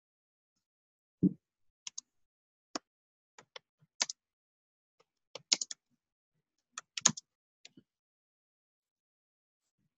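Computer keyboard keystrokes: about a dozen short, irregular clicks in small clusters, with a dull low thump about a second in.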